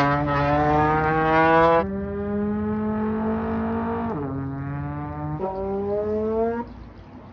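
Low brass-like sound effect playing a few long held notes, changing pitch three times with the last two notes sliding upward, then cutting off near the end.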